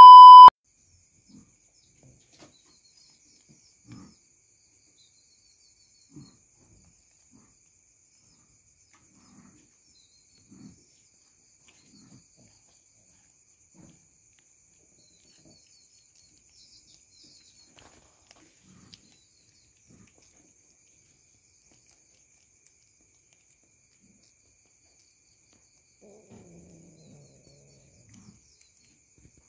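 A brief loud test-tone beep at the very start, then a cat chewing a house gecko, heard as faint, scattered short wet clicks every second or two. A few faint sounds cluster near the end.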